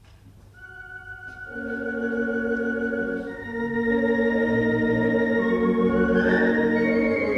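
Hilsdon theatre pipe organ starting up after a pause. A soft held note comes in about half a second in and swells into full sustained chords, with a chord change midway and a brighter rising figure near the end. It sounds bright and reverberant in the hard-surfaced auditorium.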